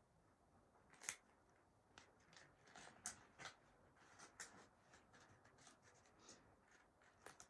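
Faint, irregular rustling and sharp clicks, with one louder click about a second in.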